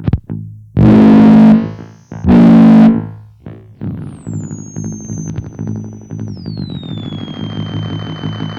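Circuit-bent Waldman flanger pedal making delay, flanger and noise effects: two loud distorted blasts in the first three seconds, then a dense, rapidly repeating noisy texture. Over it a high whistling tone glides downward twice, about four and six seconds in.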